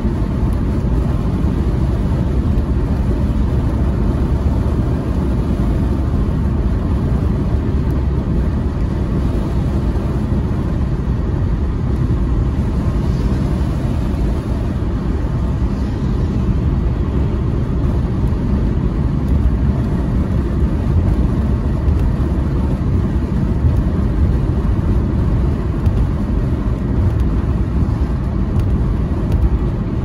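Steady low rumble of a car driving on a wet road, heard from inside the cabin.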